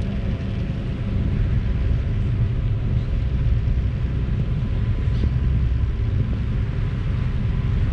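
Boat engine running at a steady pace: a constant low rumble with a faint steady hum above it.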